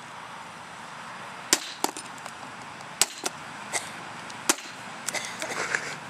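Hammer striking a combination lock on a folding card table: a run of sharp, irregular knocks, the strongest about a second and a half, three and four and a half seconds in, with lighter taps near the end. The lock is holding up against the blows.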